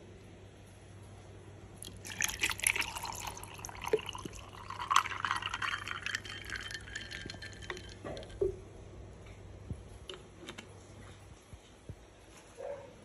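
Water poured from a plastic bottle into a glass mug of ice balls, starting about two seconds in and running for about five seconds, rising in pitch as the mug fills. Scattered ticks and clinks of the ice follow.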